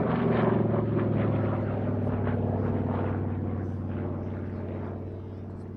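SAAB B 17A dive bomber's single Pratt & Whitney R-1830 Twin Wasp radial engine on a flypast, its propeller drone loudest at first and then fading as the aircraft flies away.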